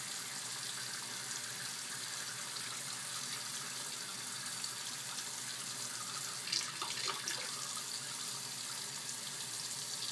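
Kitchen tap running steadily into a sink while a spoon is rinsed under it, with a few short clinks and clatters of the spoon about two-thirds of the way through.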